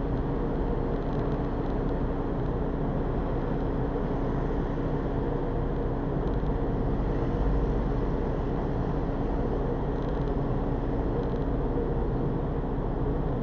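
Steady engine and road noise from inside a moving express bus, with a constant low hum and no sudden sounds; it swells slightly about halfway through.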